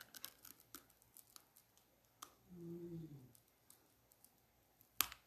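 Eating bread close to the microphone: a run of small crunchy clicks from biting and chewing in the first second and a half, a short hummed 'mm' in the middle, and one sharp, louder click near the end.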